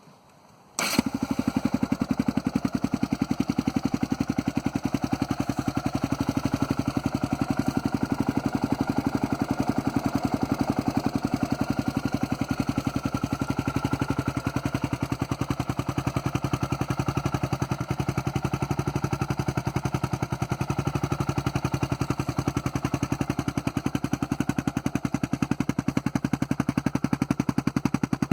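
Yamaha Raptor 660R's single-cylinder four-stroke engine starting up about a second in, then idling with a rapid, even beat.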